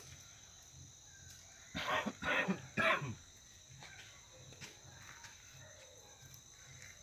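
A person coughing three times in quick succession, about two seconds in, over a faint steady high-pitched insect buzz.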